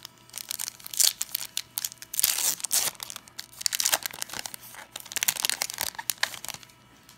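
Foil wrapper of a 2019 Topps Series 1 baseball card pack being torn open and crinkled by hand, a busy run of sharp crackles that stops about six and a half seconds in.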